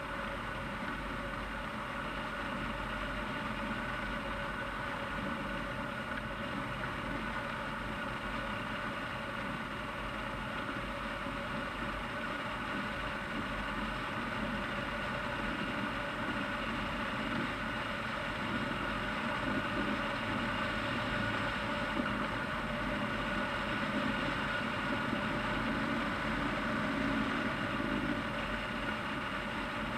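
Wind rushing over a camera mounted on a hang glider's wing in flight: a steady rush with a few faint constant whistling tones running through it.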